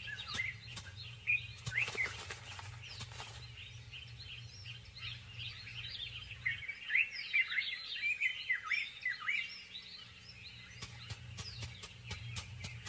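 A busy chorus of many small birds chirping and twittering in quick, overlapping calls, with clusters of sharp ticks near the start and again near the end.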